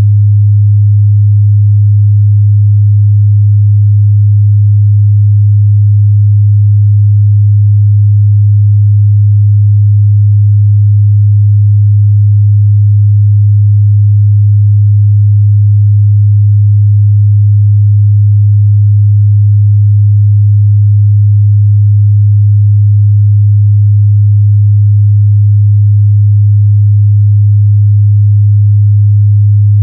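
Steady 103 Hz sine test tone, a single low hum held at one pitch and level without a break.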